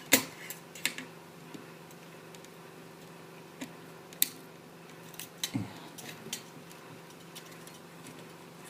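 Scattered small clicks and taps of a screwdriver against the plastic and metal parts of an old printer being taken apart, with a duller knock about five and a half seconds in. A faint steady hum lies underneath.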